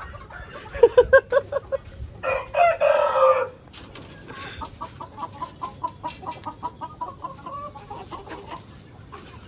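Chickens in a coop: a rooster crows once, about two seconds in, for just over a second, then a long run of quick clucks follows.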